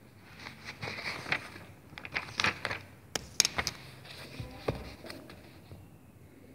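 Handling noise: a run of sharp clicks, taps and rustles, loudest around the middle, that dies away about five seconds in.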